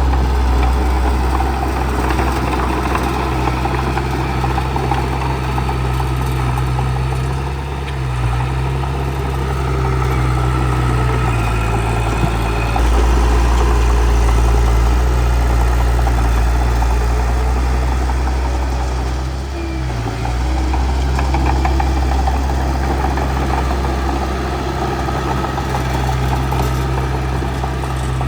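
Bulldozer's diesel engine running steadily with a low drone. It dips briefly about eight seconds in and again near twenty seconds.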